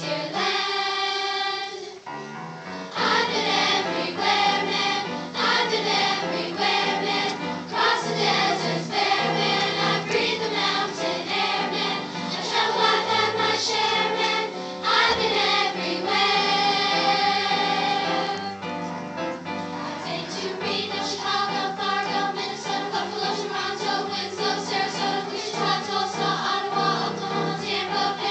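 Mixed children's choir singing in full chorus, with a brief break about two seconds in before the voices come back in.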